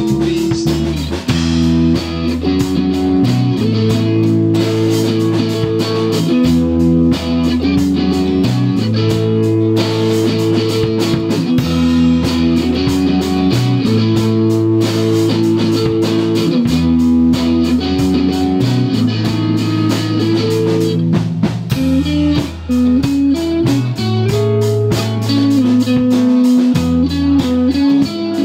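Live rock band playing an instrumental passage with no singing: electric guitar over bass guitar and drum kit, cycling through a repeating chord pattern.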